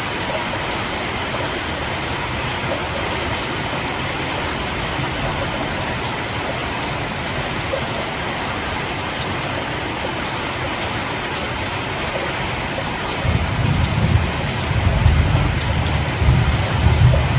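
Steady rain falling, an even hiss with an occasional sharper drop. About two thirds of the way in, a deep low rumble builds and grows louder.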